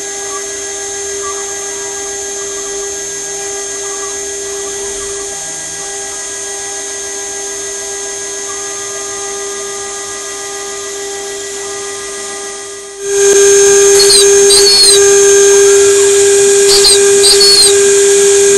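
Homemade CNC router's 2.2 kW spindle running with a steady high whine while its bit mills copper-clad PCB board. About 13 seconds in it becomes much louder, and brief rising-and-falling chirps from the stepper motors come in as the axes move.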